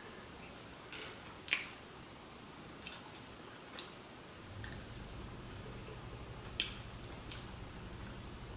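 Faint mouth sounds of someone eating a chicken wing off the bone: a few scattered soft wet smacks and clicks of biting, chewing and sucking.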